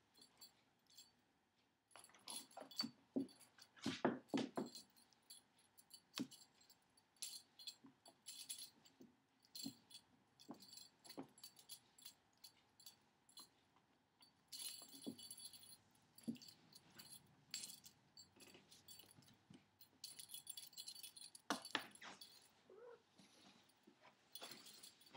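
Cats playing with a feather wand toy on a hardwood floor: faint, irregular metallic jingling in clusters, with soft knocks and scuffs as they pounce, the heaviest knock a few seconds in.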